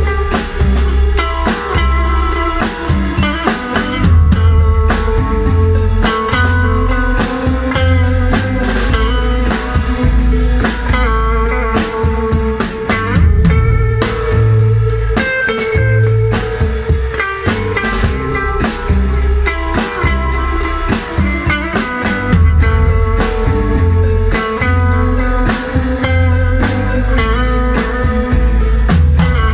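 Live rock music from a two-piece band: electric guitar played through an amplifier over a drummer striking snare, floor tom and cymbal with sticks.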